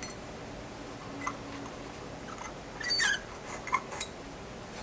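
Light clicks and clinks of small hard parts being handled and set down on a workbench, the loudest cluster about three seconds in.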